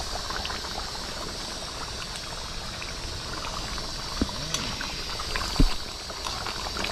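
A metal ladle stirring a thick curry in a metal cooking pot, knocking against the pot twice, with the second knock the loudest, over a steady background of faint crackling.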